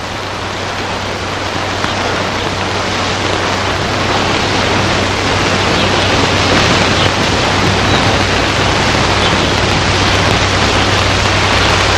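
Food sizzling in a pan over a campfire, a steady hiss that slowly grows louder, with a steady low hum under it.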